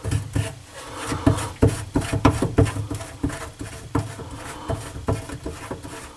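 Parts of a bathroom sink pop-up drain assembly being handled and fitted under the sink: irregular small clicks and knocks, several a second, with light scraping.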